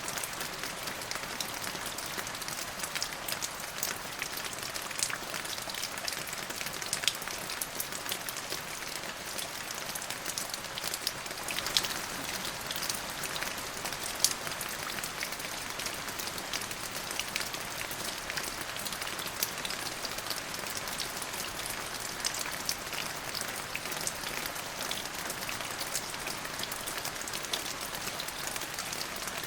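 Steady rain falling on a surface, an even hiss with many small sharp droplet ticks.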